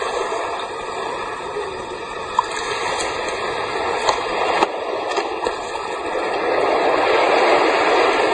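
Surf washing up over wet beach sand, a steady hiss of water that swells a little near the end.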